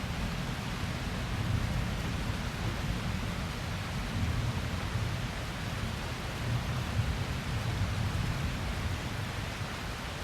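Steady rain hissing during a thunderstorm, with a low, uneven rumble underneath and no sharp crack.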